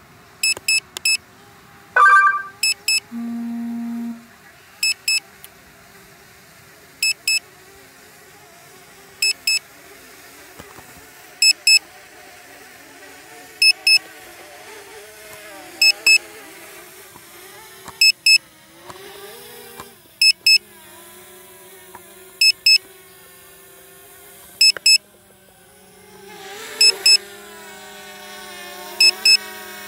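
Drone remote controller giving short double beeps about every two seconds, the warning while the drone flies its automatic return-to-home. A brief chime and a low one-second tone sound about two to four seconds in, and under the beeps a faint propeller hum grows louder over the last few seconds as the drone comes down to land.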